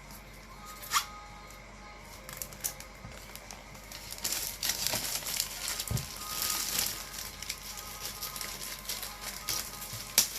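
Headphone packaging being opened by hand: crinkling and tearing of the wrapping, heaviest from about four to seven seconds in, with a sharp click about a second in. Background music plays underneath.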